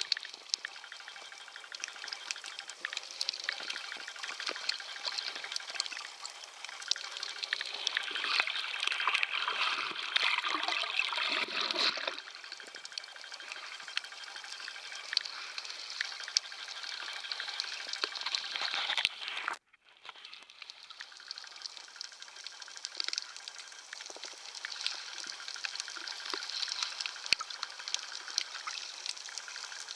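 Water heard through a submerged camera: a steady muffled hiss with many small crackles and bubble sounds. The noise swells for a few seconds in the first half and cuts out for an instant about two-thirds of the way through.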